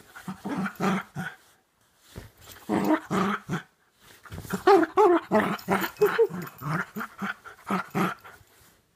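Cocker spaniel puppy play-growling while mouthing and sparring with a person's hand, in three bouts with short pauses. The last bout is the longest and loudest, with some higher-pitched notes in it.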